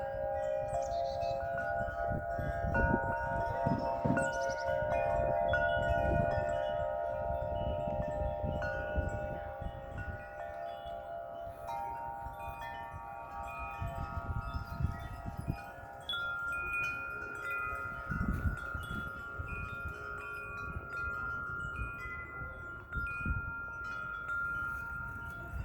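Several large tuned wind chimes ringing together in gusty wind, tube after tube struck and left to ring in overlapping tones, fullest in the first several seconds and then thinning to fewer, longer notes. Wind rumbles on the microphone underneath.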